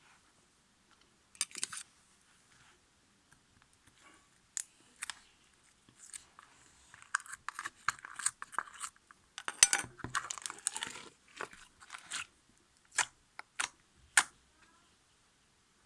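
Ice slime being pressed and squeezed, its hardened crust crackling and crunching in scattered sharp crackles, busiest about halfway through.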